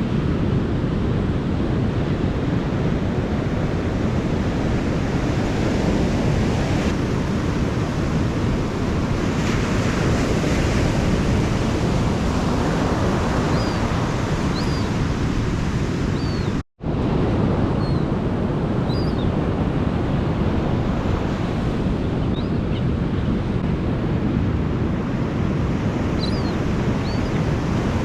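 Ocean surf breaking and washing on a sandy beach, a steady rushing wash, with wind buffeting the microphone. The sound drops out completely for a split second about two-thirds of the way through.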